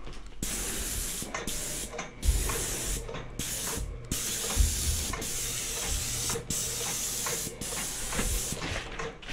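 Airless paint spray gun hissing as it atomises cabinet enamel, in a run of trigger-pulled passes broken by short pauses. A few low thumps come in among the passes.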